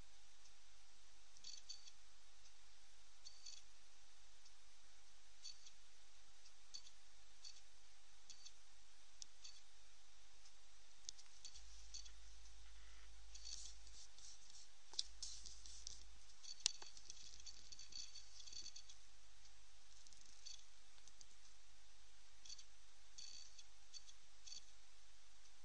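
Faint, irregular clicking and ticking over a steady low hiss, with two sharper clicks a little past the middle.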